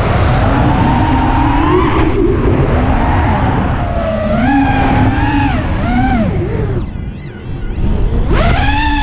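FPV quadcopter motors whining, their pitch rising and falling with the throttle over rushing wind on the onboard camera's microphone. The pitch sags and the sound dips about seven seconds in, then climbs steeply just after eight seconds as the throttle is punched.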